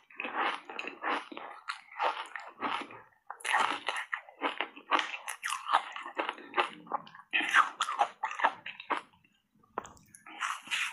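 Close-miked crunching and chewing of foam ice bars coated in matcha powder: rapid, irregular crunches of the ice breaking between the teeth, with a short pause near the end before a fresh bite.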